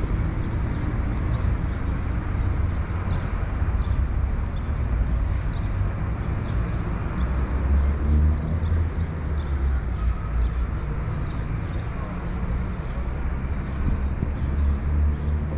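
Outdoor plaza ambience: a steady, uneven low rumble with many faint short high ticks scattered through it.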